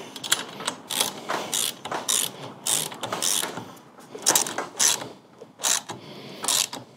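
Ratchet with a 5/8-inch spark plug socket clicking through repeated back-strokes, in short runs with pauses, as the new spark plugs are tightened into a Honda GX690 V-twin engine.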